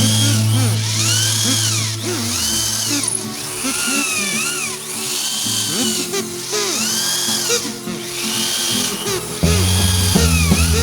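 Electric drill motor whining up and down in pitch over and over, about every one and a half seconds, over background music.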